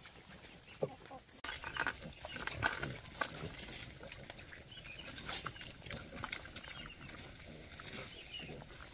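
Young wild boars grunting as they feed, among many short irregular clicks and rustles.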